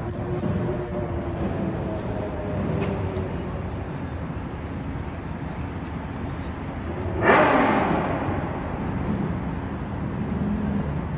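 City traffic and road noise heard from a moving taxi: a steady rumble and hiss. About seven seconds in comes a sudden loud burst of noise that drops in pitch and fades over about a second, like a vehicle passing close by.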